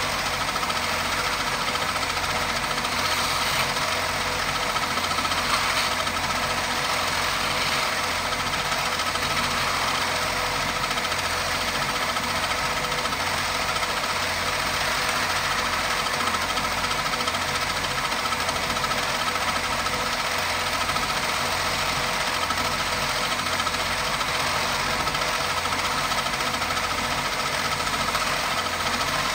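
Small wood lathe running steadily while a hand-held chisel cuts into the spinning wooden spindle, a constant motor hum with a scraping hiss of wood being shaved.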